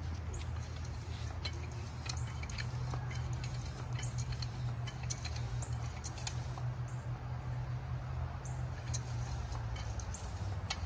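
Small hand tire pump being worked to inflate an e-bike's fat front tire, its strokes giving short squeaks and clicks at an irregular pace over a steady low hum.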